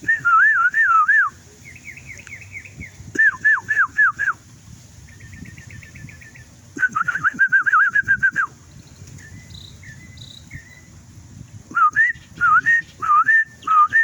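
Loud whistled phrases of looping, up-and-down notes imitating birdsong, four times, alternating with fainter bird chirps and a quick trill in the pauses, like a call-and-answer with the birds.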